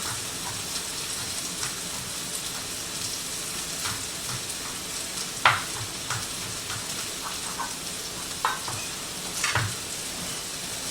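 Onions and bell peppers sizzling steadily as they fry in a pan, with a few irregular sharp knife taps on a cutting board as garlic is minced; the sharpest tap comes about five and a half seconds in.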